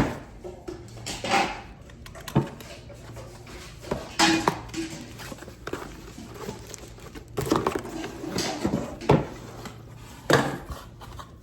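Irregular knocks, clatters and rustles of a cordless impact driver kit being unpacked and its hard plastic parts handled.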